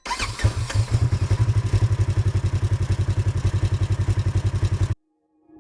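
Engine running steadily with a fast, even pulse, with some clatter at the start; it cuts off abruptly about five seconds in.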